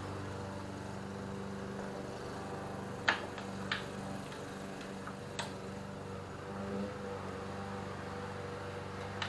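A steady low mechanical hum in a workshop, with three sharp light clicks of parts or tools being handled: two about three and three and a half seconds in, one a little past five seconds.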